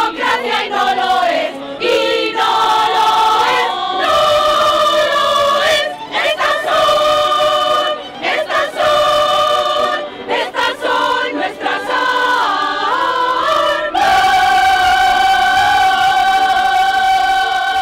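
Crowd of women singing together in chorus, with sustained sung notes and a long final note held for the last few seconds.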